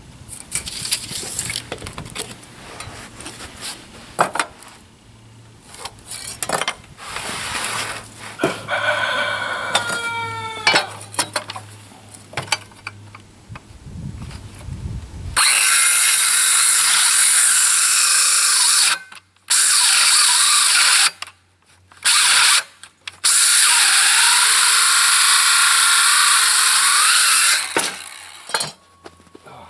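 Handheld circular saw cutting through a wooden board. It starts about halfway through, runs in three spells with two short breaks, and stops near the end.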